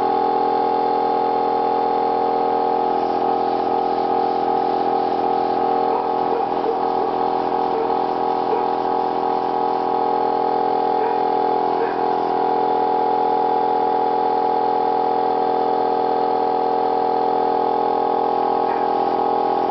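Small air compressor for an airbrush running with a steady hum.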